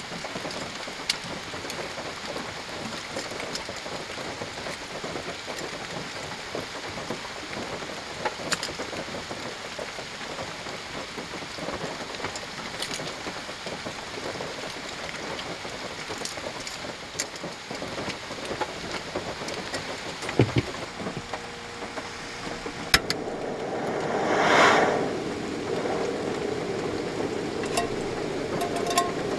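Steady rain on the car roof, with small metallic clicks as a folding cassette-gas stove, an Iwatani Junior Compact Burner, is unfolded and fitted to its canister. About 23 seconds in a sharp click and the burner lights with a brief rising rush of gas, then keeps running steadily.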